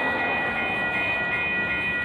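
Union Pacific mixed freight train's cars rolling past: a steady rumble of wheels on rail, with a steady high-pitched whine over it.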